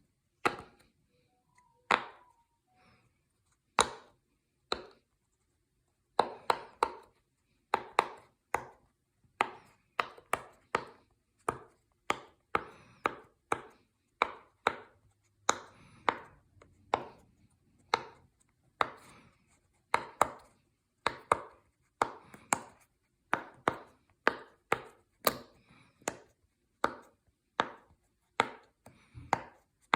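Silicone pop it fidget toy bubbles being pressed, one sharp pop after another. The pops are scattered at first, then come steadily from about six seconds in, one to two a second and often in quick pairs.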